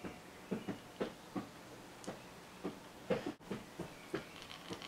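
Faint, irregular soft scratching strokes, a couple a second: a wooden eyebrow pencil drawn in short strokes along the brow.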